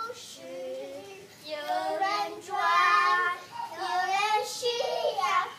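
Young child's voice singing a song without accompaniment, in short phrases of held, wavering notes, softer at first and louder from about a second and a half in.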